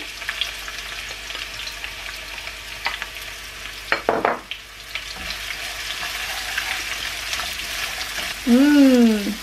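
Sliced onions and curry leaves sizzling in hot oil in a non-stick wok while being stirred, with a few clicks and knocks around the middle. Near the end a person gives a short voiced sound.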